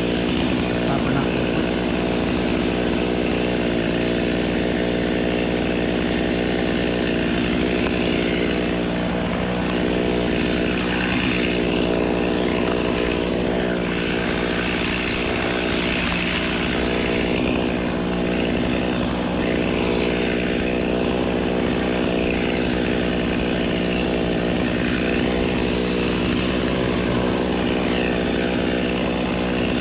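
Gas chainsaw running flat out at a steady pitch, held in a cut through a palm trunk.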